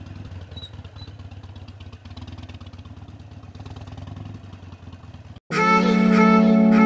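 Motorcycle engine running at low speed, a steady low hum with a fine even pulse. About five and a half seconds in it cuts off abruptly and background music with guitar starts.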